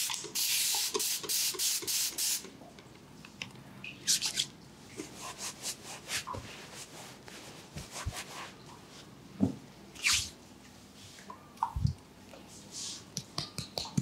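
Hand-pumped spray bottle hissing in a quick run of short sprays for the first two seconds or so. After that come scattered clicks, taps and rustling as bottles and a towel are handled, with a few more brief hisses.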